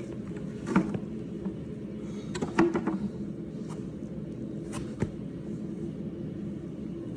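Hoof nippers cutting down a horse's hoof wall: a handful of sharp snaps as the jaws bite through the hard horn, the loudest about a second in and a cluster near the two-and-a-half-second mark, over a steady low hum.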